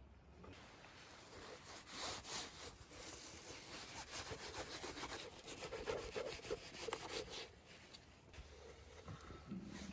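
A large kitchen knife cutting through a raw lamb rib rack on a wooden board, in a quick run of short scraping strokes as the blade works between the ribs. The strokes ease off near the end.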